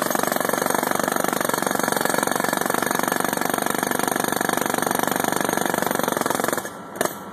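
Heavy machinery running with a rapid, steady mechanical clatter. It drops away briefly near the end, then returns.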